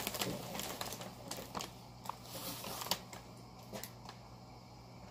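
Plastic wrapping and bubble wrap crinkling and rustling in irregular bursts, with scattered small clicks, thinning out toward the end.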